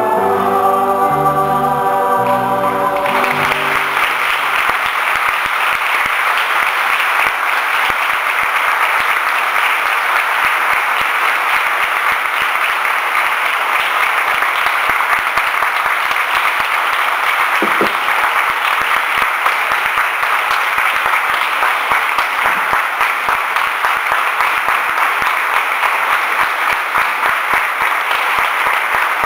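A choir's closing song ends about three seconds in, and steady applause takes over for the rest.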